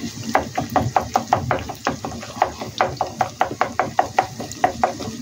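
Wooden spatula knocking and scraping against a wok in quick, regular taps, about five a second, as an egg is scrambled in oil and broken into small crumbly bits.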